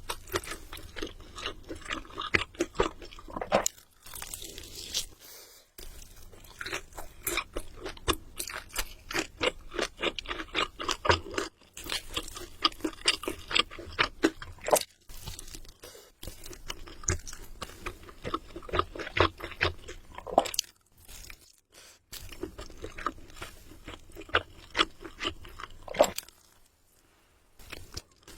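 Close-up crunching and chewing of crispy fried chicken, with many sharp crunches in quick succession and a few short pauses between bites.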